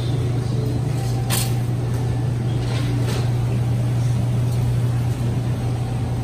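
Steady low droning hum of a motor vehicle, with a single sharp click about a second and a half in.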